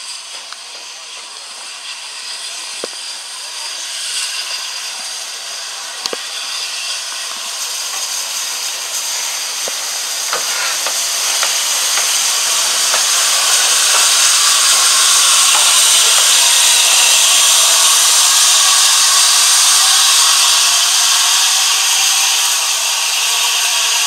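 Steam hissing from the LNER A3 Pacific locomotive Flying Scotsman as it moves slowly by. The hiss grows louder over the first dozen seconds and then holds steady, with a few sharp clicks in the first half.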